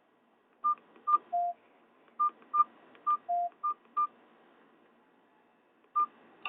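Nokia 216 keypad tones: a string of short electronic beeps as its keys are pressed, most at one higher pitch with two longer, lower beeps among them, then a pause and one more beep near the end.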